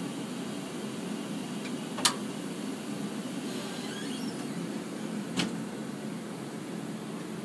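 Steady hum of IMAX 70mm projector booth equipment and ventilation, with two sharp clicks, a loud one about two seconds in and a smaller one about five seconds in.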